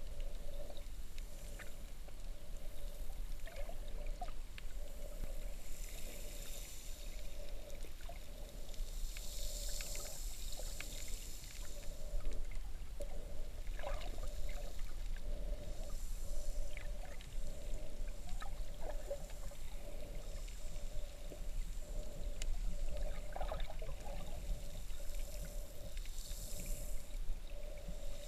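Underwater sound picked up by a submerged camera in shallow sea water: a constant low rumble with a steady, pulsing hum and scattered faint clicks and crackles. A hiss swells up a few times, most strongly about ten seconds in and again near the end.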